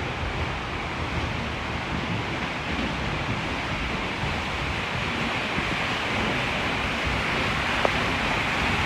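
Steady rushing roar of a waterfall, with wind buffeting the microphone in gusts. A single light click comes near the end.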